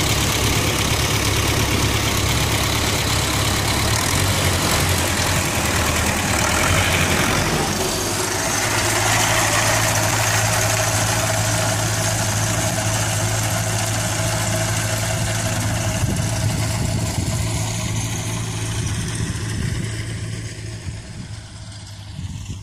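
T-40 tractor's air-cooled diesel engine running steadily under load while it mows, fading away over the last few seconds.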